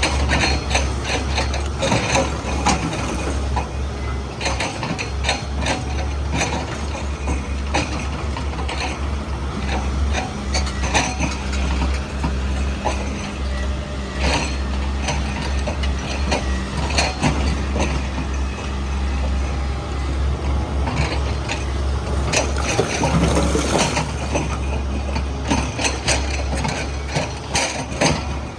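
XCMG 210 crawler excavator working: a steady low diesel engine drone with frequent metallic clanks and knocks, and a stretch of hiss a little before the end.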